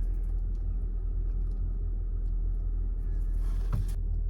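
Steady low rumble of a car, heard from inside the cabin, with a faint knock near the end.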